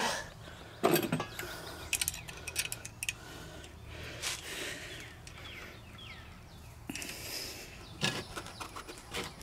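Combination wrench working a steel carburetor mounting bolt loose on a small aluminum-block engine: irregular metal clicks and clinks as the wrench is repositioned and the bolt turns.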